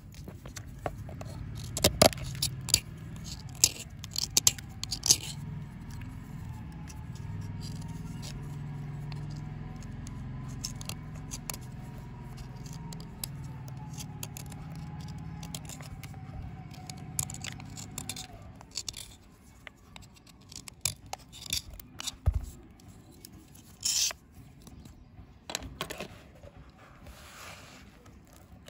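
A small knife scraping and cutting a dry soap bar, giving a series of crisp scrapes and snaps as shavings break off. Near the end, a handful of powdery shavings crumbles and rustles. A steady low hum sits underneath and stops about two-thirds of the way through.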